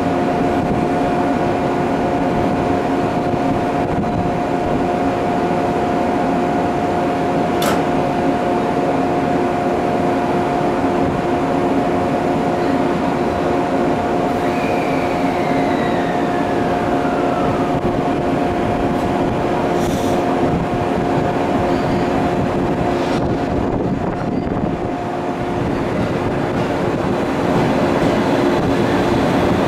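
JR West 223 series electric multiple unit standing at the platform with a steady hum from its onboard equipment, then starting to pull away near the end, the running sound growing louder.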